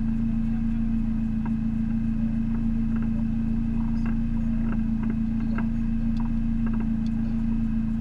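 Race car engine idling steadily with the car at a standstill, heard from inside the cabin, with a few faint light ticks now and then.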